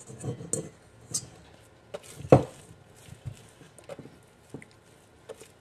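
Hands patting and working sticky sweet potato bread dough on a wooden board: soft, scattered pats and squishes, with one louder thump a little over two seconds in.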